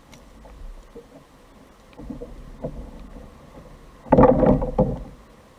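Handling noise aboard a fishing kayak: soft scattered knocks and rustling, then a loud burst of rapid rubbing and knocking about four seconds in that lasts under a second.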